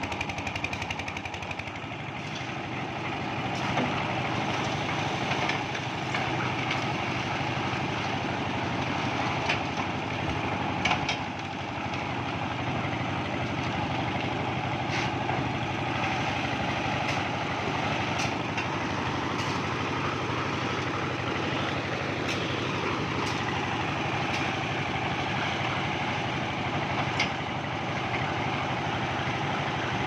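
Concrete mixer running steadily, its motor and turning drum making a continuous mechanical drone. Every few seconds a sharp knock or clatter stands out as pans of aggregate are tipped into the drum.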